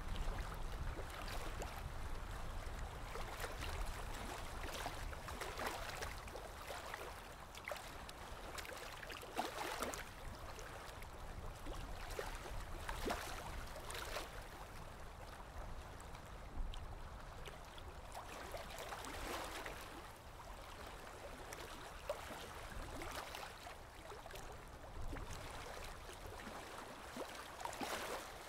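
Aquarium water trickling and gurgling: a faint, uneven rush that swells and falls every few seconds, with small ticks of splashing.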